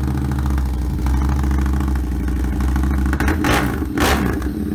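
Harley-Davidson Street 750's liquid-cooled V-twin, stage 1 tuned with intake, fueling and black aftermarket slip-on exhausts, running steadily. It is revved briefly twice near the end.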